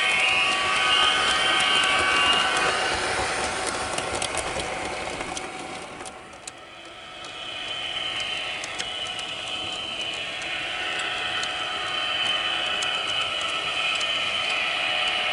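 HO-scale model Metra bilevel train running past on its track, with a steady motor-and-gear whine and scattered clicking of wheels over the rail joints. The sound fades away about six seconds in, then builds again as the train comes past once more.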